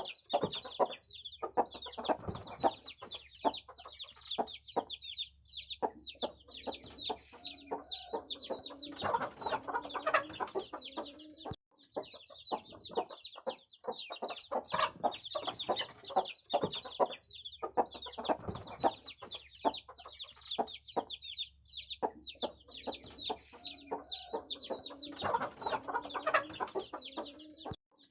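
A crowd of aseel chicks peeping without pause: many short, high, falling chirps overlapping. Lower clucking calls come in now and then.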